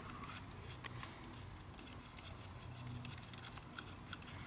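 A few faint clicks of hand tools and small Torx screws being handled while the ignition module's screws are loosened, over a low steady hum.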